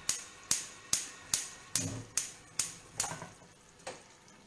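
Gas hob's spark igniter clicking about twice a second while the burner knob is held in, stopping about three and a half seconds in as the burner lights.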